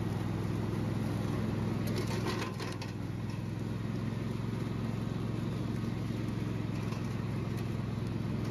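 An engine running steadily with a low, even drone, with a few light clicks about two seconds in.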